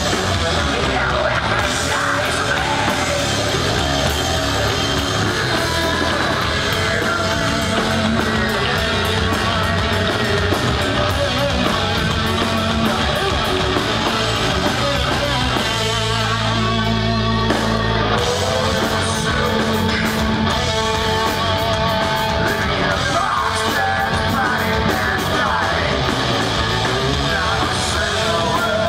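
Heavy metal band playing live: distorted electric guitars, bass guitar and drums, with a shouted, sung lead vocal. About sixteen seconds in there is a short break where a low note is held and the cymbals drop out before the full band comes back in.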